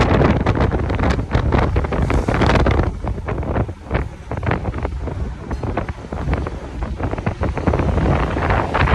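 Wind buffeting a phone's microphone on a moving motorcycle: a loud, uneven rush with the road and motorbike noise under it.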